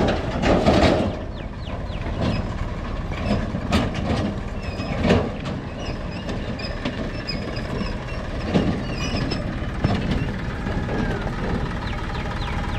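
Farm tractor engine running as it tows a flatbed trailer along a dirt track, with irregular knocks and rattles from the trailer.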